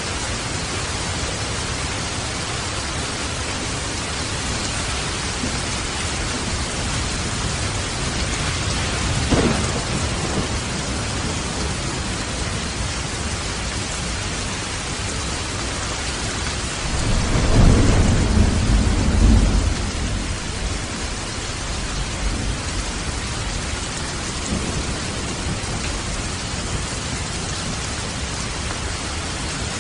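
Steady rain with thunder: a short crack of thunder about a third of the way in, then a longer, louder low rumble near the middle.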